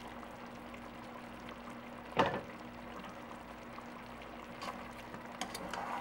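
Chicken simmering in chile colorado sauce in a stainless steel pot on low heat, a soft steady bubbling. About two seconds in, a single sharp clatter as the glass lid is set down, and near the end a few light knocks as a spoon starts stirring in the pot.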